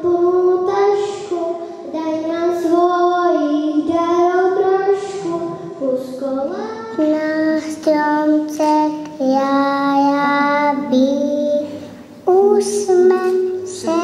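Young child singing a St. Nicholas children's song into a microphone, one voice holding notes and sliding between them.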